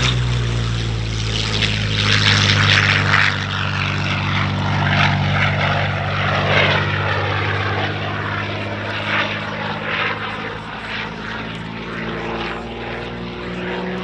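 Curtiss P-40N Warhawk's liquid-cooled Allison V12 engine and propeller during an aerobatic display, the engine note falling in pitch over the first couple of seconds, then running on as the sound slowly fades.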